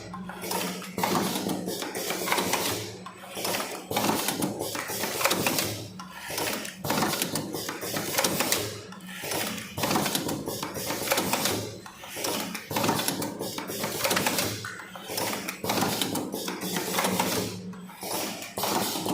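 Automatic cartoning machine running, a dense mechanical clatter of clicks and rattles over a steady low hum. The clatter eases in brief lulls every two to three seconds as the machine cycles.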